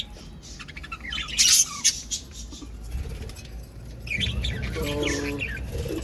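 A colony of budgerigars chirping and chattering, with a short burst of squawky chatter about a second and a half in and more calling around four to five seconds in, over a low rumble.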